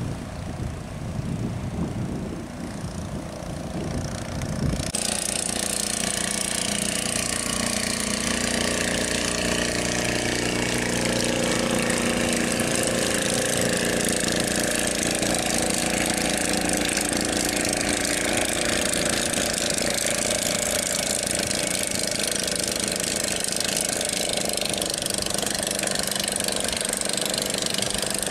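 Outboard motor of a small fishing boat running steadily, after a low rumble of wind and surf that cuts off about five seconds in.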